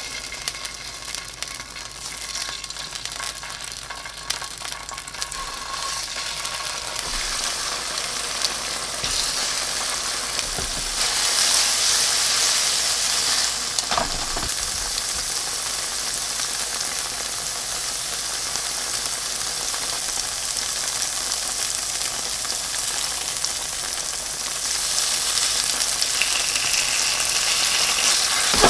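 Slabs of firm tofu sizzling in hot oil in a nonstick frying pan. The sizzle builds over the first several seconds and swells again near the end, with an occasional light click.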